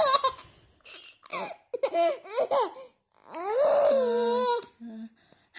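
Baby laughing: a string of short laughs, then one long drawn-out high laugh a little past the middle.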